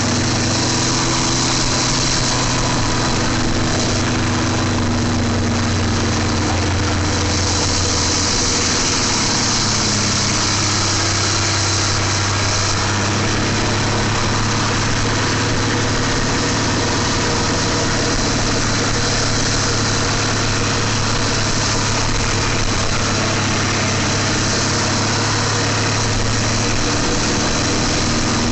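Bus diesel engine idling steadily.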